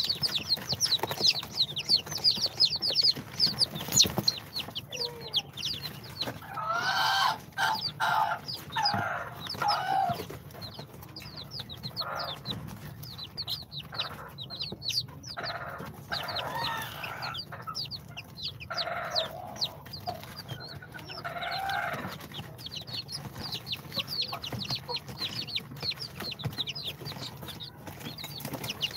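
A brood of day-old chicks (İspenç, Brahma, bantam Cochin and Sultan) peeping constantly in quick, high, overlapping chirps. Twice, deeper calls lasting a few seconds rise over them, from a grown chicken.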